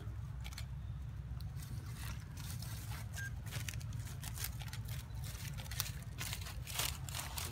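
A macaque chewing and biting food held in its hand: a run of small, crisp crunches and clicks at irregular intervals, over a steady low rumble.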